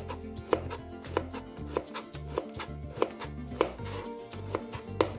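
Chef's knife slicing a peeled cucumber thinly on a plastic cutting board, the blade knocking on the board about twice a second.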